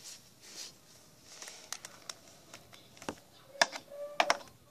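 Small plastic toy pet figure tapping against a toy dollhouse and its doorway: a few scattered sharp clicks, closer together and loudest in the second half.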